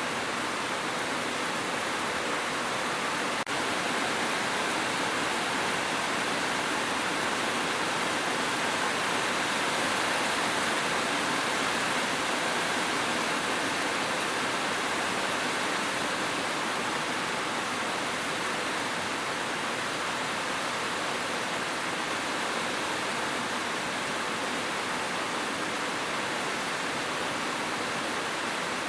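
Steady rain falling, an even hiss with no single drops standing out. There is a faint click about three and a half seconds in.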